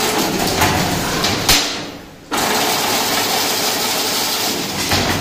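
Semi-automatic chain link fence machine running as it weaves wire into diamond mesh: a steady, dense mechanical noise. A sharp knock about one and a half seconds in is followed by a short quieter stretch, then the full running noise returns abruptly.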